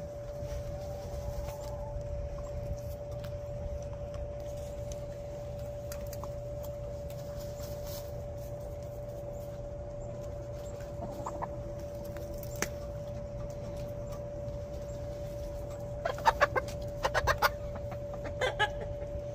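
Domestic hens clucking: a run of short, sharp clucks near the end, over a steady humming tone.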